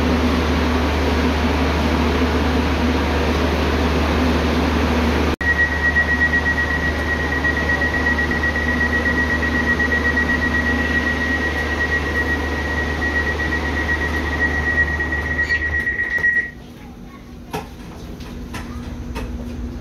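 Tren Maya door-closing warning: a high-pitched rapid beeping that lasts about eleven seconds over the steady hum of the train's ventilation. The beeping stops as the doors shut, and the hum and platform noise drop away at once, leaving a few small clicks.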